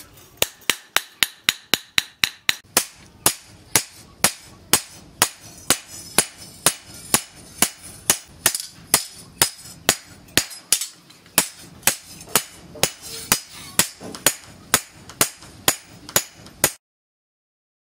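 Hand hammer striking a curved steel knife blade on a small steel post anvil: a steady run of blows, about two to three a second, each with a short metallic ring. The hammering stops abruptly near the end.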